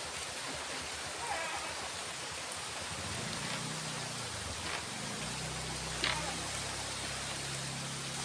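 Light rain falling in strong wind: an even hiss of rain with a few sharp drops ticking, over a low rumble.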